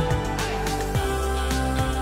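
Background music: sustained instrumental notes over a light, regular beat.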